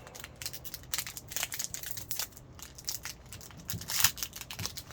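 Wrapper of a SkyBox trading card pack being torn open and crinkled by hand: irregular crackles, with one louder crinkle about four seconds in.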